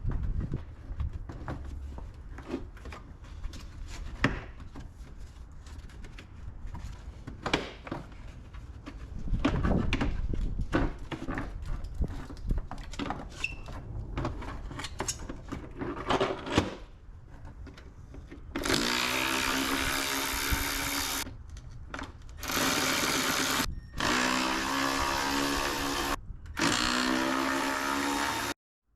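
Clicks and knocks of plastic bumper parts being handled, then a cordless drill running in four bursts of one to three seconds, driving out the screws that hold the OEM valance and fog lights to the bumper.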